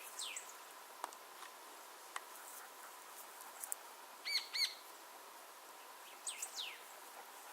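Birds calling: a sharp whistle that sweeps quickly downward near the start and again near the end, with a louder pair of quick chirps in the middle, over a steady faint hiss.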